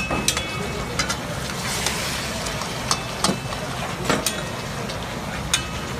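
Long metal ladle knocking and scraping against a large karahi wok as the mutton karahi is stirred: several irregular clanks, some with a short metallic ring, over a steady hiss of frying.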